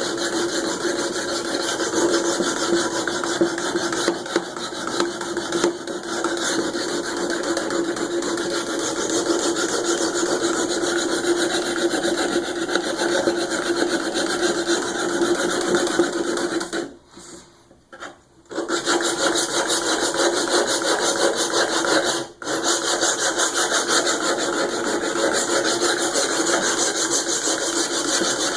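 Steel knife blade rasping continuously against the extra-coarse diamond plate of a Work Sharp guided sharpening system, worked back and forth by hand to grind the edge. The grinding stops for about a second and a half after the middle and again very briefly a few seconds later.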